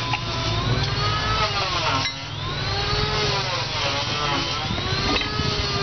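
A power tool's motor running, its pitch sagging and climbing back every second or two as it is loaded and eased off, over a steady low engine hum.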